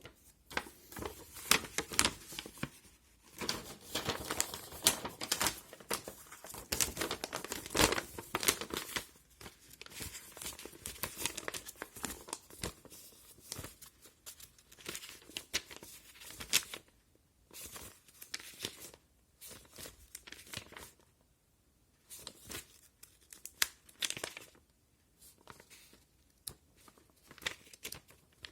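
Packaging being unwrapped by hand, crinkling and tearing in irregular rustling bursts with sharp crackles, busiest in the first third and then coming in shorter bunches with brief pauses.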